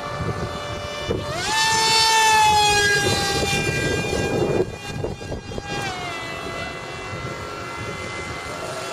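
Radio-controlled model plane's motor and propeller whining as it flies overhead: the pitch jumps up about a second in, is loudest for a second or two, slides slowly down and drops again about six seconds in, then holds steady. Low wind rumble on the microphone underneath.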